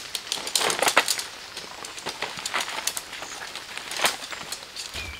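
Tent poles clicking and rattling together and tent fabric rustling as the frame of a dome tent is put together. There is a cluster of sharp clicks about a second in and another around four seconds in.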